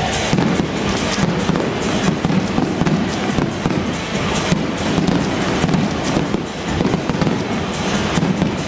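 Fireworks going off in a rapid, dense string of cracks and bangs, over loud music.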